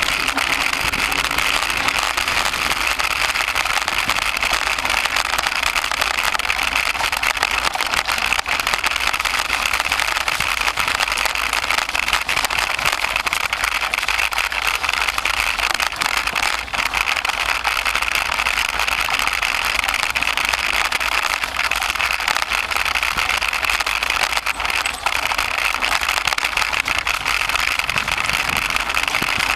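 Mountain bike rolling over a dirt forest trail, picked up by a camera mounted on the handlebars: a steady rattling rush of tyres and frame vibration, with many small knocks from bumps.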